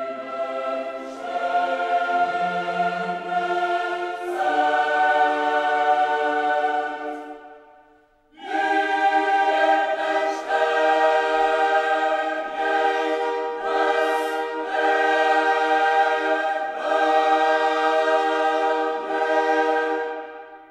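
Background music: a choir singing long held chords. It fades out about eight seconds in, comes back in a moment later, and dies away at the end.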